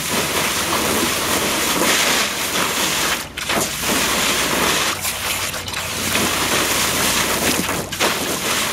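Garden hose nozzle spraying a jet of water up into a plastic wading pool: a steady hiss and splash. A dog bites at the spray, and the sound dips briefly a few times, most clearly about three seconds in and near the end.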